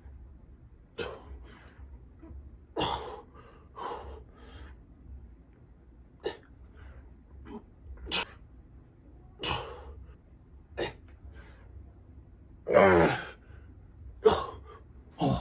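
A man's sharp, forceful exhalations, about one every second or so, in time with decline push-up reps, with a longer strained grunt about thirteen seconds in.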